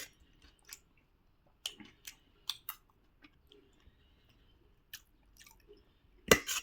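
A person chewing puri with pickle and curry close to the microphone: scattered sharp, wet mouth clicks and smacks, with a louder burst near the end.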